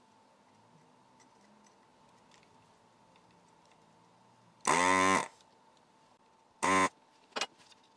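Handheld desoldering gun's vacuum pump whining in short bursts as its trigger is pulled, rising in pitch as it spins up: a loud half-second burst about halfway through, a shorter one about two seconds later and a brief blip after that. Each burst sucks molten solder from the circuit board's through-holes to free the connector pins.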